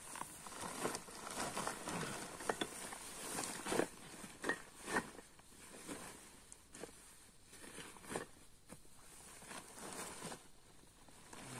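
Irregular rustling, crackling and light knocks, loudest in the first half, over a faint steady high-pitched hiss.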